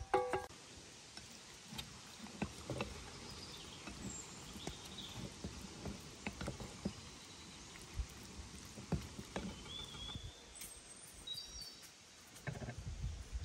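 Quiet outdoor ambience with scattered light taps and knocks and a few faint, brief high bird chirps; a short tail of music ends just after the start.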